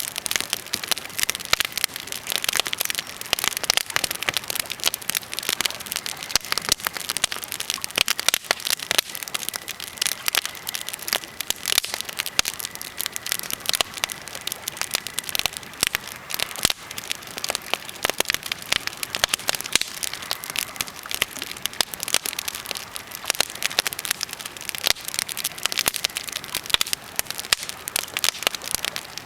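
Birch and pine campfire crackling steadily, a dense, irregular run of small sharp snaps.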